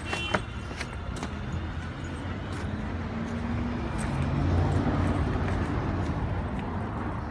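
A motor vehicle passing on the street: a low rumble that swells to its loudest about halfway through and then eases off. A few sharp knocks come in the first few seconds.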